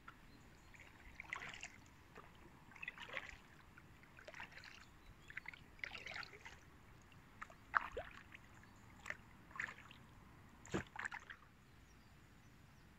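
Kayak paddle strokes in calm river water: a soft splash and drip of the blade about every one and a half seconds, with one sharper knock about three-quarters of the way through.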